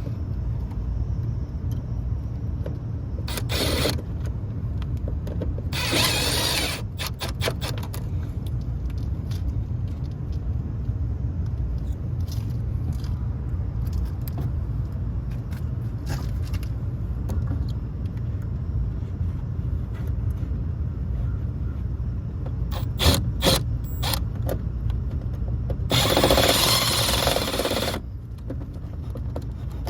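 Tools and metal parts scraping and clicking as a control transformer is swapped out inside an HVAC unit's control panel, over a steady low rumble. There are a few short scrapes early on, sharp clicks a little past the middle, and a louder scrape lasting about two seconds near the end.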